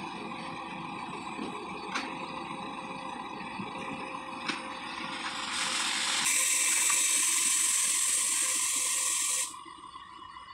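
A steady hum from idling trucks with a few sharp clicks. About six seconds in, a loud hiss starts, runs for about four seconds and cuts off suddenly.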